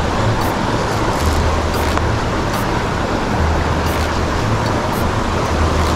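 Mountain stream water rushing steadily over stones close by, with a low intermittent rumble underneath.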